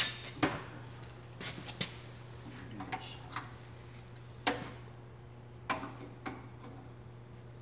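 Scattered metallic clinks and knocks of a hand tool working on the exhaust mounting of a side-by-side, about half a dozen separate strikes, over a steady low hum.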